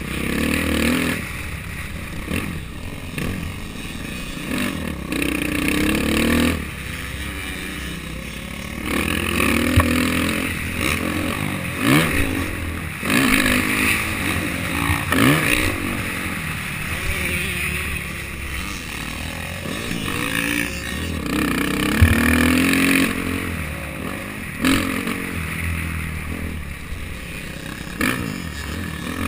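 Dirt bike engine revving up and falling off again and again as it is ridden around a motocross track, heard from the rider's helmet camera with wind rush and rattle.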